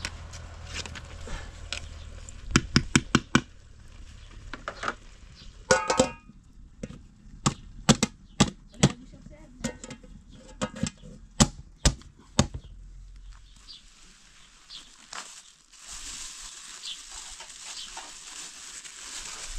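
Metal cooking pot, ladle and lid clanking: a run of sharp knocks as the ladle strikes the pot and the lid is handled and set on, with one ringing clang about six seconds in.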